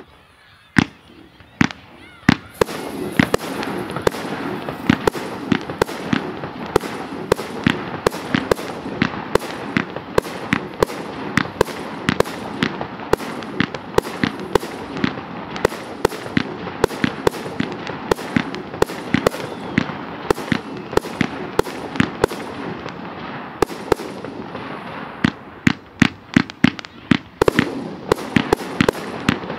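Professional fireworks display of F3 items and 3 to 5 inch shells: a few single bangs, then from about two and a half seconds in a dense, continuous barrage of bangs that thins briefly near the end before picking up again.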